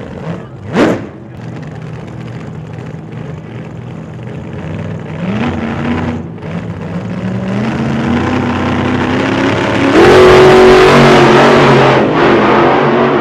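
Car engine revving, its pitch climbing in steps and the sound growing louder, with a quick rising whoosh about a second in and a loud burst of rushing noise joining it about ten seconds in.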